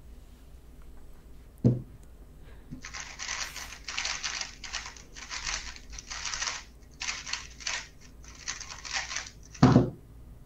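A 3x3 speedcube being turned very fast, rapid plastic clicking in runs of a second or so broken by short pauses, through a solve of about seven seconds. Near the end a loud thump as the hands slap down on the stackmat timer to stop it; another single thump comes just before the turning starts.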